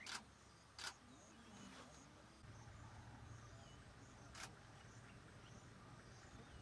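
Three sharp camera shutter clicks in a quiet bush setting: one at the start, one a little under a second in, and one about four and a half seconds in. A faint low steady hum comes in about two and a half seconds in.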